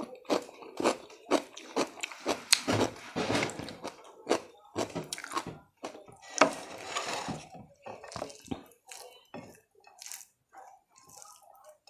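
Close-miked chewing of a mouthful of food: many short crunches and wet mouth clicks at an uneven pace, dense through the first two-thirds and thinning out toward the end.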